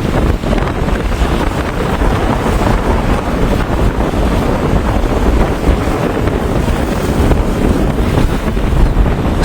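Strong wind buffeting the microphone: a steady, loud rush with a heavy low rumble and small gusts throughout.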